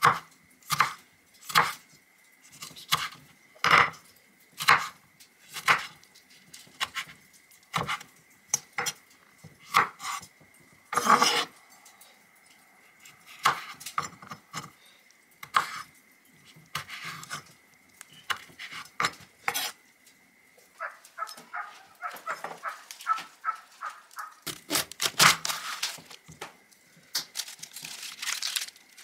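A chef's knife chopping a tomato on a wooden cutting board, the blade knocking the board about once a second, then quicker, lighter cuts. Near the end, romaine lettuce leaves crinkle as they are handled.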